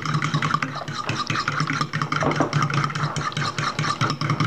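A fork beating a thin batter in a stainless steel mixing bowl: fast, even clicking and scraping of metal on metal, several strokes a second.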